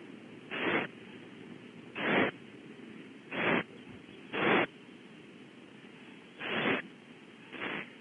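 Barn owl owlets hissing: six short breathy hisses at uneven gaps of one to two seconds, the 'snoring' call that barn owl young use to beg for food.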